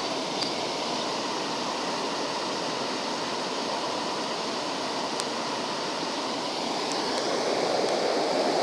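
Steady rush of flowing water, a stream or small waterfall, growing a little louder near the end, with a few faint clicks.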